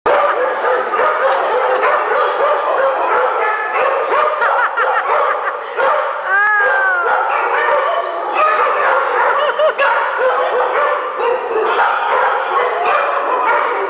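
A pack of dogs barking and yipping together without a break, the calls overlapping. About six and a half seconds in, one dog lets out a longer call that rises and then falls.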